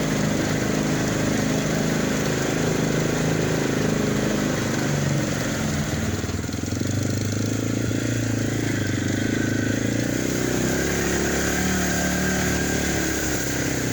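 Off-road vehicle engine running steadily; its pitch drops about six seconds in and then holds lower.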